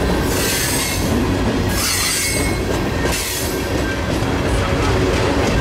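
Loaded freight train flatcars rolling past close by: a steady rumble of steel wheels on rail, with two bursts of high-pitched wheel squeal in the first three seconds.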